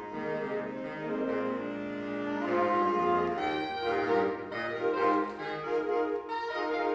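Saxophone ensemble playing held chords in several parts, swelling louder about two and a half seconds in.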